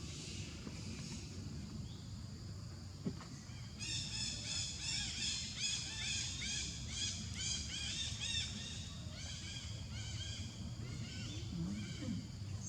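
A quick series of short, high, arching chirping calls, about three a second, that begins a few seconds in and tapers off, over a steady low rumble.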